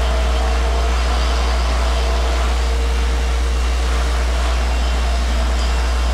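A steady machine drone: a deep, even rumble with a constant hum over it.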